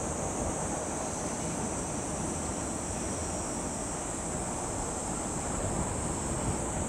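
Boeing 767-300 airliner's jet engines rushing steadily as it rolls out down the runway after landing, heard from behind, with a steady high hiss over the top.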